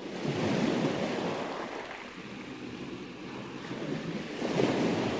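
Ocean waves breaking as a steady rushing noise, swelling twice: about half a second in and again near the end.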